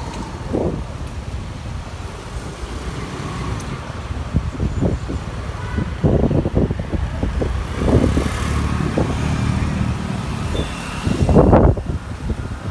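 Wind buffeting the microphone of a camera riding on a moving bicycle: a low, uneven rumble that grows stronger about halfway through and is gustiest near the end.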